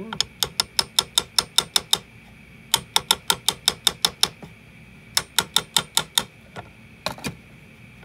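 Light hammer taps on a metal scraper blade wedged under a nylon 3D print, to pop it off the printer bed: quick sharp taps about six a second in three runs, with two more near the end.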